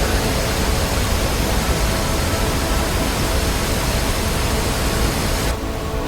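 Steady roar of a waterfall's rushing water, dense and heavy in the low end. Near the end it cuts abruptly to a softer, duller sound.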